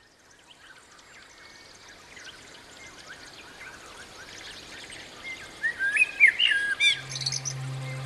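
Many birds chirping and singing together, growing louder, with one loud whistled phrase that jumps up and down in pitch about six seconds in, ending in high twitters.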